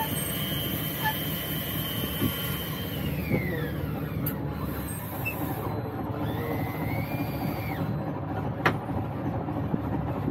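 Fishing boat's engine running steadily with a low rumble. A high whine glides down in pitch about three seconds in, another rises and holds around six seconds, and there is one sharp click near the end.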